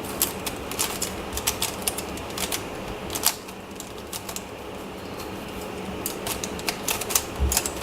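MoYu Crazy YiLeng plastic puzzle cube clicking as its layers are turned by hand: irregular runs of sharp clicks, easing off for a couple of seconds in the middle, with a dull knock near the end.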